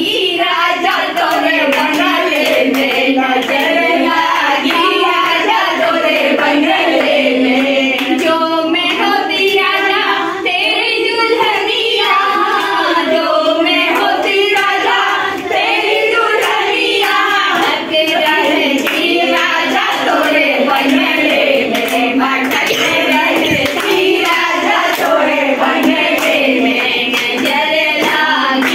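Group of women singing a song together, with hand-clapping along to the singing.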